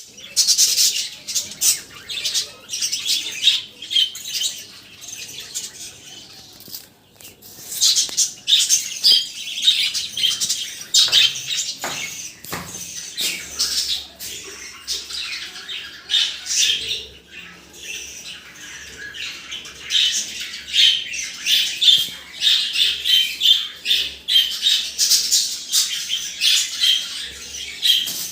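Many small birds chirping and twittering, a dense overlapping chatter of short high calls that swells and dips in loudness.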